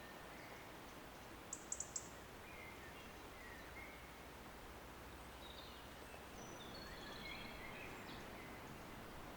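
Faint outdoor ambience with a steady background hiss and scattered short bird chirps. A quick run of four very high, sharp ticks about one and a half seconds in is the loudest sound.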